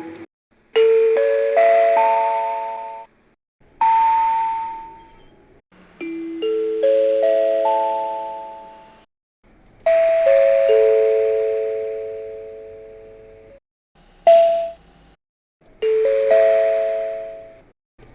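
Seibu Bus on-board electronic chimes: six separate chime phrases in turn, each of one to four notes that ring on and fade. Most step upward in pitch, one steps downward, and one is a single short ding.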